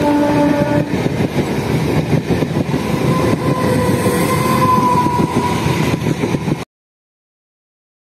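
Electric multiple-unit local train running past close by, a dense rumble and rattle of wheels on the rails with a few steady whining tones over it. The sound cuts off abruptly near the end.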